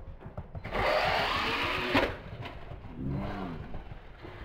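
Wltoys 144010 RC buggy's brushless electric motor revving, with its tyres on the paving: a rush of noise lasting about a second that ends in a sharp knock, then the motor's whine rising and falling briefly about three seconds in.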